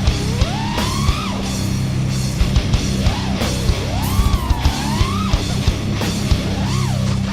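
Heavy metal music with distorted electric guitar and fast drums.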